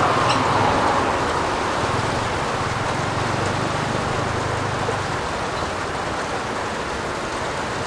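Steady heavy rain falling on a roof, a dense even hiss that eases slightly after the first couple of seconds, with a faint low rumble underneath.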